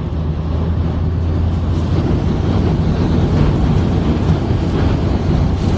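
Inside a car in a severe storm: a steady low vehicle hum under a rushing noise of wind and heavy rain on the car, which swells about a second and a half in.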